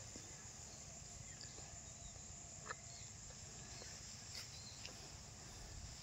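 Faint outdoor field ambience: a steady high hiss over a low rumble, with a few small clicks and one sharper click about halfway through.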